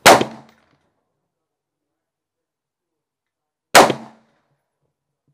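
Two shots from an AR-15 rifle firing 62-grain 5.56 mm rounds, the first right at the start and the second nearly four seconds later, each a sharp crack that dies away within half a second.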